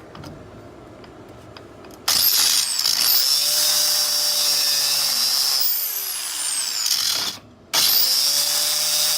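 Dremel Ultra Saw with a metal-cutting blade starting up about two seconds in with a rising whine, then running loud and steady as it cuts a slot across the head of a rusty one-way security screw. It cuts out abruptly for a moment near the end and starts again.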